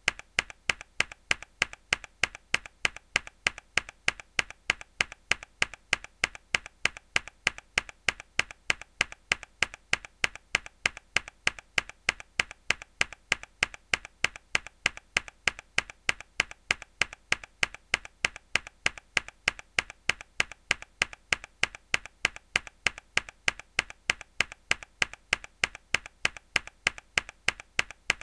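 A single mechanical keyboard key pressed hard, repeated as an even loop of sharp clicks at about four a second.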